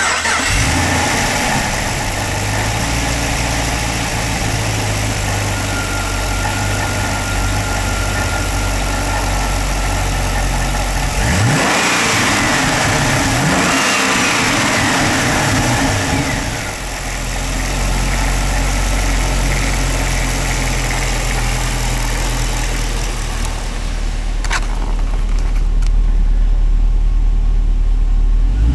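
A 2009 Pontiac G8 GXP's 6.2 L LS3 V8 idling steadily. It is revved twice in quick succession about halfway through, rising and falling each time, then settles back to idle. In the last few seconds it is heard from inside the cabin, duller and deeper.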